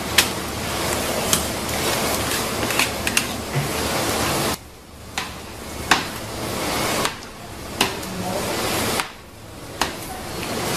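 Spatula scraping, scooping and spreading kamaboko fish paste into a metal fish-shaped mould frame, with several sharp taps over a steady noisy hiss that cuts out abruptly a few times.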